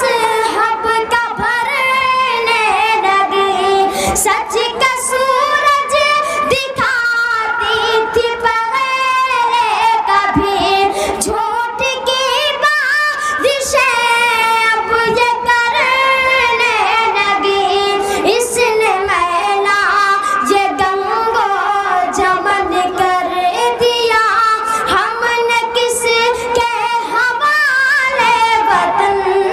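A boy singing a poem solo and unaccompanied into a stage microphone, in long held notes that glide and waver in pitch with only brief breaths between phrases.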